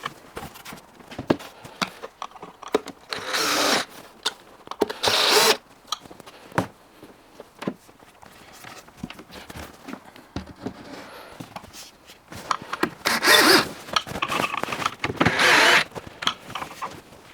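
Power drill-driver running in four short bursts of about a second each, two of them early and two near the end, driving fittings as wooden panels are joined. Between the bursts come scattered knocks and clicks of the panels and fittings being handled.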